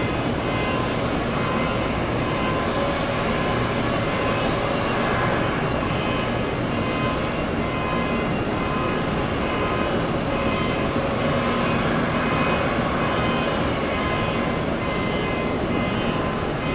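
Jet airliner engines running, a steady rush with a faint whine.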